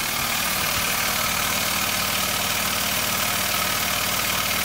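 Jensen Model 20G live steam engine running steadily, a rapid even beat over a steady hiss, as it drives a converted computer-fan generator by belt.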